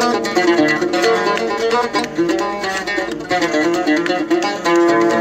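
Algerian mandole played with a pick, running quick single notes in an instrumental chaabi passage between sung verses.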